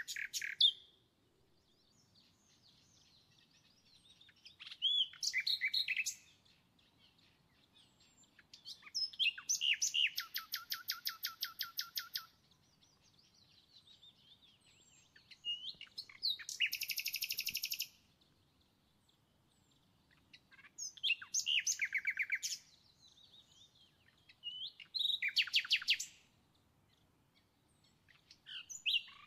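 Small songbird singing in bursts of fast, rapidly repeated trills every few seconds, the longest lasting about three seconds, with soft chirps in between.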